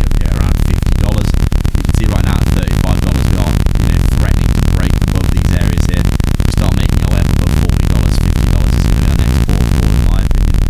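Loud electronic background music: a dense, noisy wash with heavy bass and short synth figures over it.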